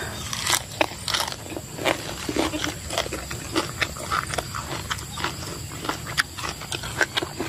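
Close-up chewing and crunching of a mouthful of raw lettuce wrapped around spicy salad, with wet mouth smacks and irregular crunches throughout.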